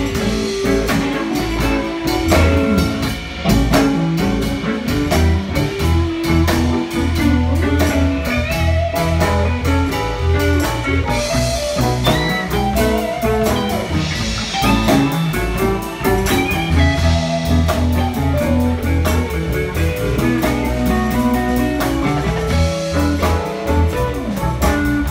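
Live blues band playing an instrumental: electric guitars over bass guitar and drum kit with a steady beat, the guitar bending notes.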